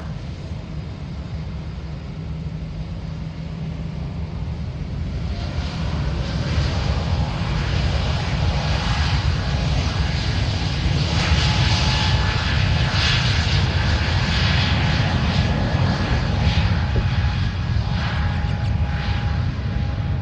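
Jet aircraft engines passing near the airport, swelling in loudness about five seconds in with a steady whine over a deep rumble, then easing slightly near the end.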